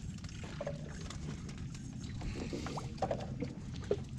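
Steady low hum of a fishing boat at sea, with a few small knocks and clatters on deck.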